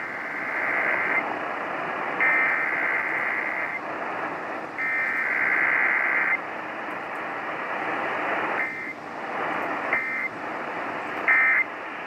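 Emergency Alert System SAME data bursts, the screeching digital header that opens an EAS test, played through an AM radio's speaker over steady static hiss. There are three long bursts, about a second and a half each with a gap between them, then three much shorter bursts near the end.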